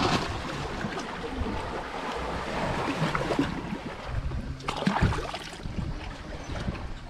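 Gusty wind buffeting the microphone over the wash of the sea. The buffeting is strongest about four to five seconds in.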